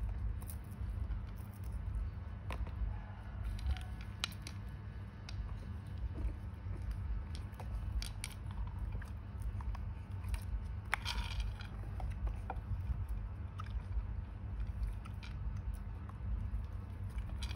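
Baby macaques picking through and eating seeds in a plastic crate: scattered small clicks, crunches and rattles of seeds and plastic, over a steady low hum.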